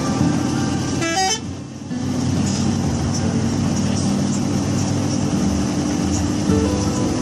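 Indonesian bus 'telolet' musical horns sounding in long held multi-note chords, the notes shifting now and then, with a short break about a second and a half in.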